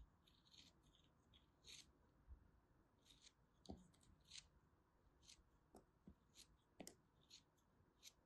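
A small blade slicing through a lump of kinetic sand: a quick, irregular series of short, crisp scratchy crunches, about a dozen of them.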